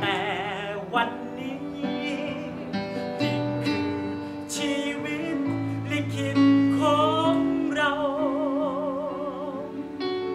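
A voice singing long held notes with a wide vibrato over sustained electronic keyboard chords. The longest held note begins about two-thirds of the way in and runs almost to the end.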